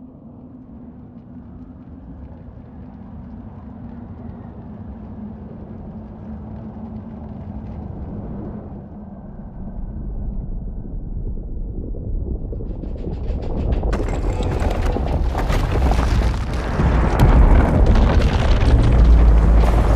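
Film soundtrack building from a quiet low drone into a loud, deep rumble, swelling steadily. About two thirds of the way in, harsher noise and music join and keep growing.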